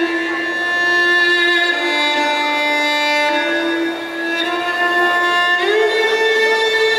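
Slow instrumental dance music: a violin melody of long held notes, stepping up to a higher sustained note about two-thirds of the way through.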